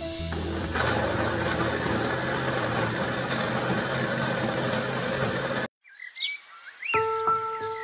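Countertop blender running, its motor whirring steadily as it blends chilies in oil; it cuts off abruptly a little over five seconds in. Birds then chirp in short rising and falling notes.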